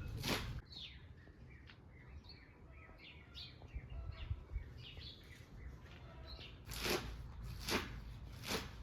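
Small birds chirping and twittering in quick, scattered notes. A few louder, brief rasping strokes come right at the start and then three more near the end, spaced a little under a second apart.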